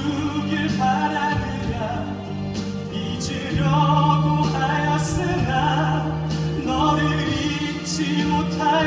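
A solo voice singing a slow melody with long held notes over orchestral accompaniment in a live stage musical, heard from the audience through a phone's microphone.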